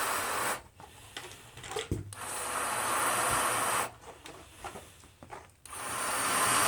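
Balloons being inflated: three bursts of rushing air, each about two seconds long, with short pauses between them.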